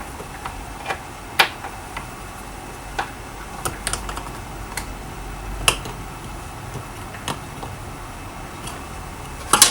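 Scattered light clicks and taps from handling small plastic parts: the fuel hoses and primer bulb of a chainsaw carburettor being fitted by hand, with a louder cluster of clicks near the end.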